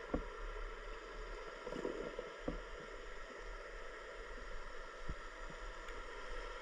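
Steady watery noise with three short knocks: one near the start, one about two and a half seconds in, and one about five seconds in.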